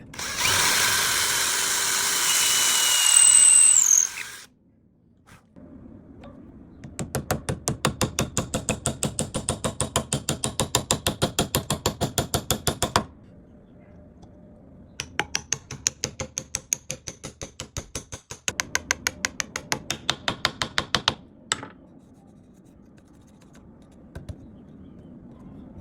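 A power drill runs steadily for about four seconds and stops. It is followed by two spells of rapid, even ratcheting clicks, about seven a second, each lasting around six seconds, with a pause between them.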